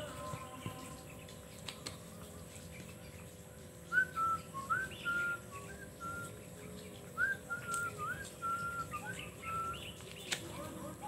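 Two short phrases of high whistled notes, about four or five notes each. Each note slides quickly up and is then held level at much the same pitch.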